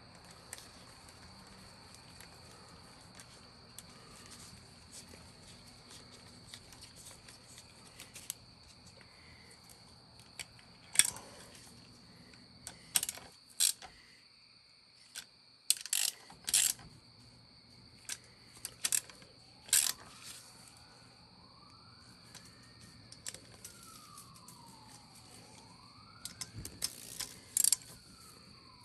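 Sharp metal clicks and clinks of a socket ratchet and bolts as the stator cover is bolted onto a Suzuki GSX-R 600 engine, in scattered clusters. A steady high chirring of night insects runs underneath, and for the last several seconds a siren wails up and down.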